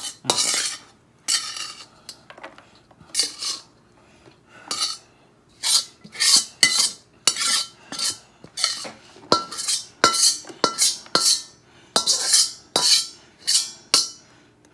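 Metal spatula scraping fried rice out of a frying pan and tipping it into an aluminium foil tray: a run of short rasping scrapes, one or two a second, some with a brief metallic ring, coming faster in the second half.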